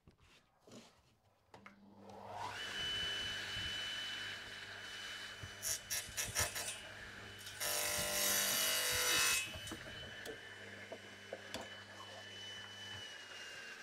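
Radial arm saw switched on and spinning up to a steady whine, then its blade crosscutting a piece of chestnut for about two seconds near the middle. The motor is switched off near the end and begins to run down.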